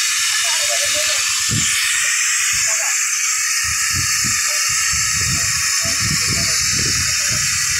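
Steady loud hiss, with muffled voices and low knocks underneath.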